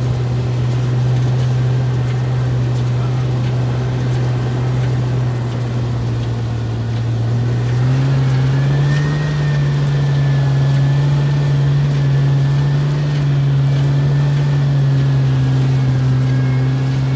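Jeep Wrangler LJ's 4.0-litre inline-six running while driving, a steady drone that steps up slightly in pitch about halfway through, joined then by a faint high whine.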